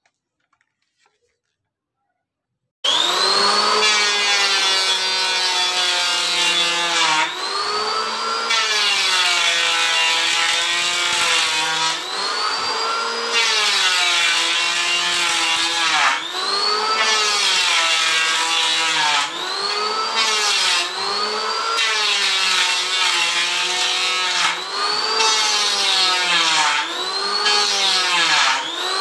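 An electric wood planer cutting timber. After about three seconds of silence its motor comes in suddenly and loud, and the pitch of its whine dips and recovers every second or two as the blades bite into the wood under load.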